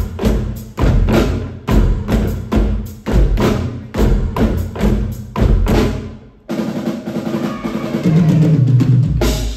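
Live stage percussion show: drums and sharp percussive hits playing a fast, loud beat. The beat cuts off abruptly about six seconds in, a steadier low sound takes over, and the hits come back near the end.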